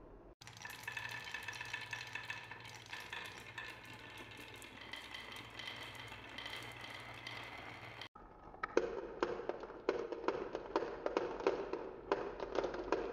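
Glass marbles rolling and clinking through a wooden marble run. First comes a steady rolling rattle with ringing clinks, then after a cut a louder, rapid run of clacks as marbles roll down the wavy wooden tracks.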